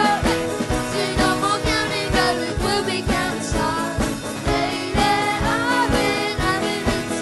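A small live band playing a pop-rock song: strummed acoustic guitar, drum kit keeping a steady beat of about two hits a second, and keyboard, with a sung melody over it.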